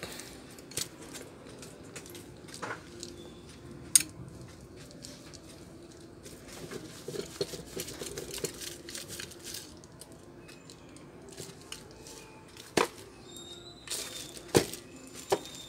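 Handling noise from taking apart and wiping a stand fan's motor parts on bubble wrap: soft rustling and crinkling with scattered clicks and knocks of the metal parts, one sharp knock about four seconds in and several more near the end.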